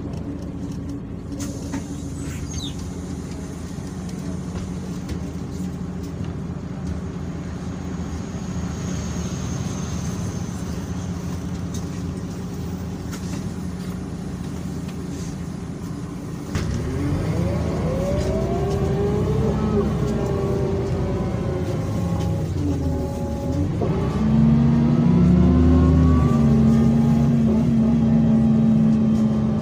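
Mercedes-Benz O345 city bus diesel engine running steadily, then a little over halfway through it speeds up and gets louder, its note rising. The note drops back briefly, as at a gear change, then climbs again to its loudest near the end.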